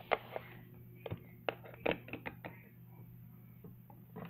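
Small plastic toy figures and dollhouse-style furniture pieces clicking and knocking as a hand moves them and sets them down: an uneven scatter of light taps.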